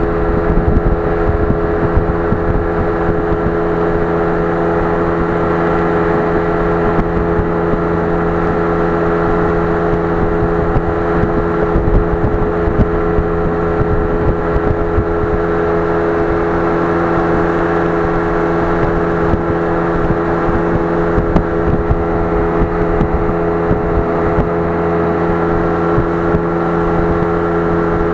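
A motor running at a constant speed, a steady drone that holds the same pitch throughout.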